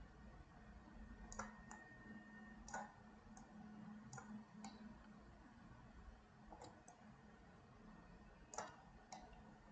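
Faint, scattered clicks of a computer mouse and keyboard, about ten over the stretch, the loudest a little before the end, over a low steady hum.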